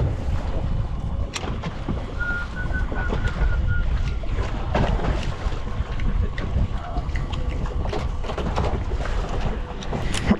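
Wind buffeting the microphone over sea water washing against the hull of a small boat, with scattered clicks and knocks from handling a baitcasting reel. A brief run of faint high chirps comes about two seconds in.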